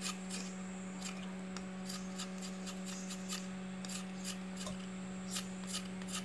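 Hand-held vegetable peeler shaving a firm vegetable into thin slivers: quick, repeated short scraping strokes, about two to three a second. A steady low electrical hum runs underneath.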